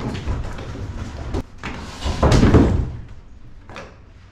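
Timber frame of a boarding platform knocking and scraping against a plank dock as it is heaved into place: a knock, then a heavier thud and scrape about two seconds in, then a light click near the end.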